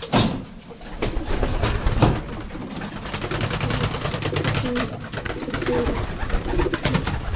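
Homing pigeons cooing in a small loft, with repeated wing flaps as birds flutter up to and between their perches.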